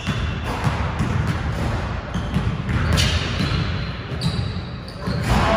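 Basketball dribbled on a hardwood gym floor, a run of repeated bounces, getting louder near the end.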